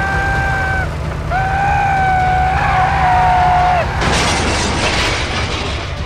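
Dubbed sound effects over a steady low engine rumble: two long, flat, high-pitched held tones, the first brief and the second about two and a half seconds long. About four seconds in, a loud rushing boom effect takes over.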